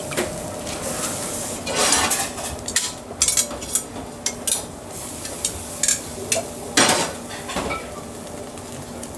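Restaurant kitchen clatter: dishes and utensils knocking and clinking in a string of sharp hits, the loudest about two seconds in and again near seven seconds, over a steady hum.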